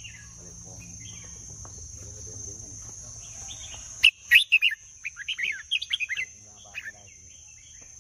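Red-whiskered bulbul singing: faint chirps at first, then loud, quick, bright phrases starting about halfway through, followed by a short note near the end. A steady high-pitched drone runs underneath.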